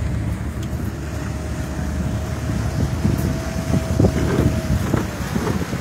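Motorboat underway: the engine running steadily with wind buffeting the microphone and the hull moving through the water.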